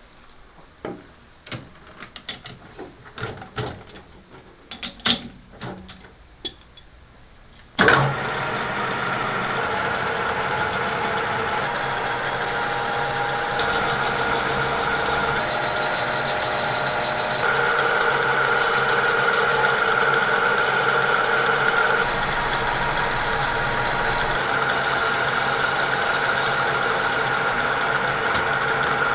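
Scattered clicks and knocks as a clear plastic disc is handled and fitted at a metal lathe. About eight seconds in, the lathe starts suddenly and runs steadily with a constant hum and whine while the tool cuts the spinning disc.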